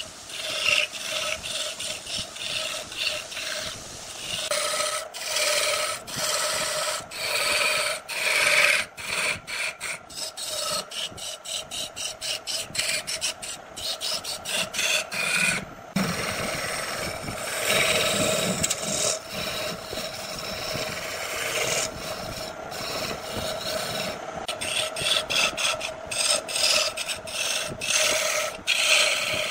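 A hand tool scraping and cutting against wood spinning on a woodturning lathe, in many short repeated strokes over a steady hum, with a brief break about halfway through.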